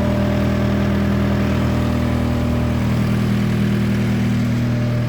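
Case SR175 skid steer's diesel engine idling steadily at an even pitch.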